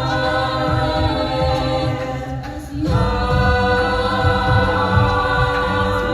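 High school a cappella choir singing held chords. The sound dips briefly about two and a half seconds in, and the next chord comes in just before three seconds.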